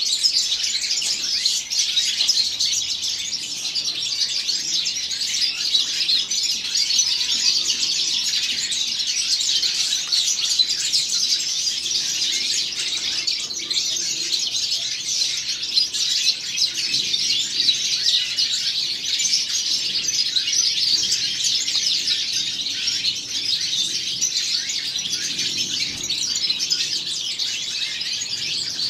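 Young male European goldfinch singing a continuous, fast, twittering song of high chirps and trills.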